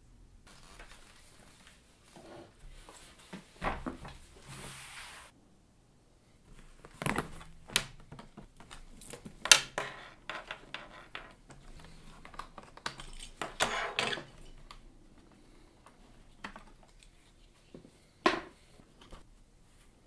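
Handling noise from a portable Sony reel-to-reel tape recorder being taken out of its cloth carrying case: scattered clicks, knocks and rustling. The sharpest click comes about nine and a half seconds in, and another near the end.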